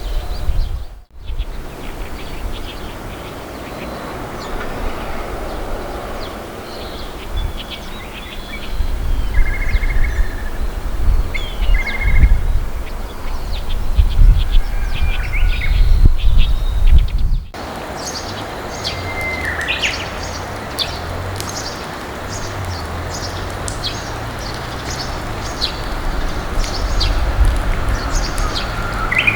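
Male blue rock thrush singing short warbled phrases over heavy wind rumble on the microphone. Partway through, the sound cuts abruptly to a steadier background filled with many short, high bird chirps.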